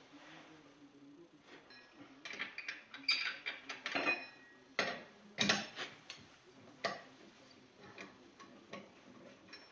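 Light metal clicks and clinks of a lug wrench and lug nuts being worked as a car wheel comes off, about one a second, the loudest about halfway through.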